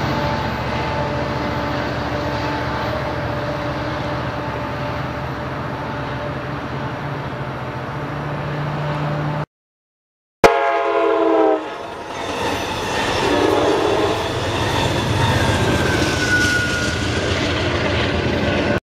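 Amtrak California EMD F59PHI diesel locomotive running steadily as it passes with its bilevel cars. After a second's silence, a train horn sounds a loud chord for about a second, followed by a broad rumble.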